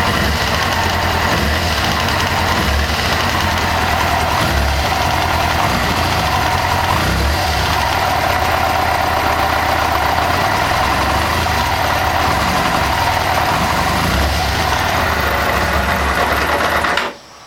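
1998 Kawasaki ZX-6R inline-four engine idling steadily with a ticking noise, then shut off sharply near the end. The owner noticed the tick after a valve adjustment and thinks it comes from the rear, under the fuel tank, rather than from the cam chain area.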